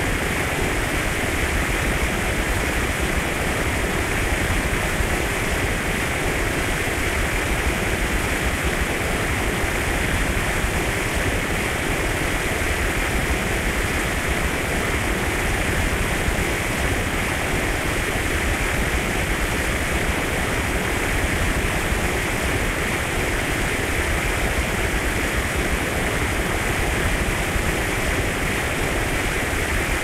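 Fountain water pouring from a spout and splashing down, a steady rushing noise.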